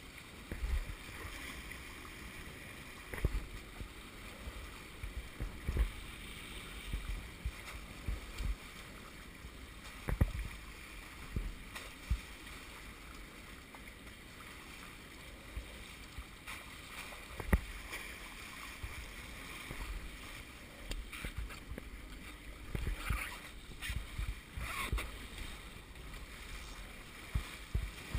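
Water rushing and splashing along the hulls of a Hobie Wave catamaran under sail, with irregular knocks and thumps as the boat moves through the chop; a sharp knock about seventeen seconds in.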